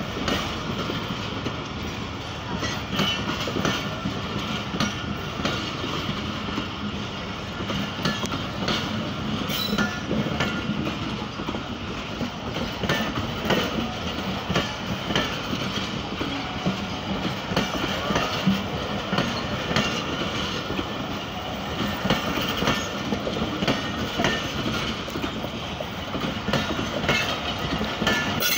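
Pakistan Railways passenger coaches rolling past at speed: a steady rumble with the repeated clack of wheels over rail joints.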